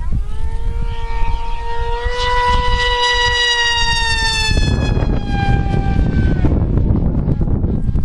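Electric RC model plane's Scorpion 3026 1600kv brushless motor spinning an 8x6 propeller at high throttle: a high-pitched, siren-like whine that climbs a little about two seconds in, then drops in pitch and fades away after about five seconds. A low wind rumble on the microphone runs under it.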